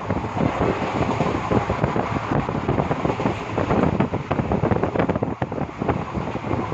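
Rumble and rattle of a moving passenger train heard from on board, with heavy wind buffeting the microphone in irregular gusts.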